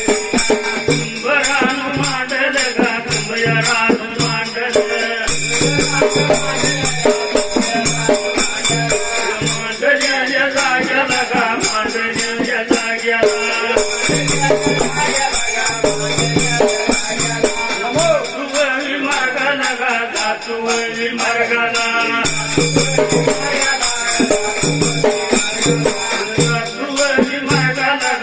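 Instrumental Dhangari ovi folk accompaniment: a fast, steady jingling rhythm of rattles or small cymbals over repeated drum beats, with a melody line running throughout.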